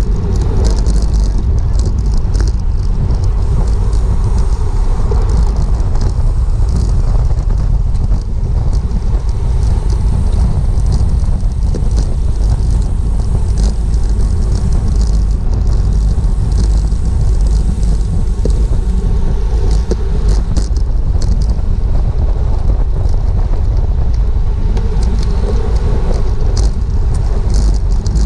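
Heavy wind rumble on a GoPro's microphone riding at racing speed in a bicycle race pack, with road and bike noise and scattered high clicks.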